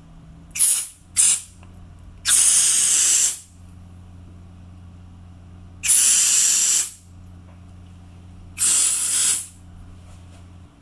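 Aerosol freeze spray hissing in five bursts: two short puffs about a second in, then three longer sprays of about a second each. It chills the chocolate holding a bonbon shell onto its stick so that it sets fast.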